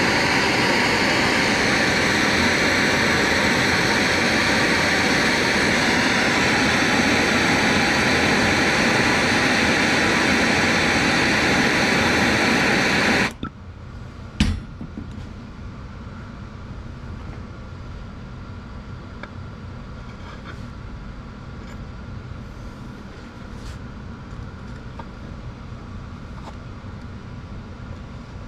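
Handheld gas torch burning with a loud, steady hiss as it heats a metal pick to melt holes through a fabric parachute bag. The hiss stops abruptly about 13 seconds in, a single sharp knock follows a second later, and then there is only faint shop background with a few small clicks.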